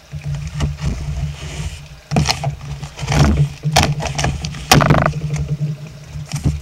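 Utility knife slicing packing tape on a cardboard box, with cardboard scraping and several sharp crackles as the tape splits and the flaps are pulled apart, over a steady low hum.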